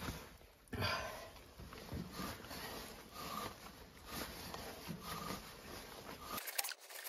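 Hand die cutting an M24 x 1.5 mm thread down a bar: the die stock is turned in repeated strokes, with metal scraping and creaking against the cut and the gloves rubbing on the handles, roughly once a second. About six seconds in, this sound cuts off and gives way to a faint, fast, even ticking.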